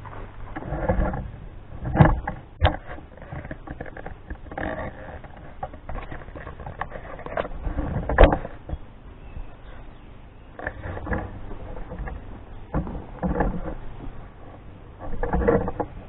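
A New Holland skid steer loader's engine working under load as it pushes its bucket into brush and small trees. The engine note swells and strains, with sharp cracks and knocks, the loudest about two seconds in and eight seconds in.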